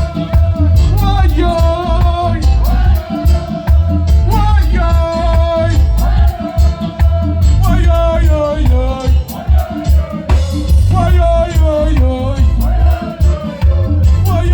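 Live reggae band playing loud: a heavy bass line pulsing on the beat under drums and keyboards, with a wavering lead melody on top.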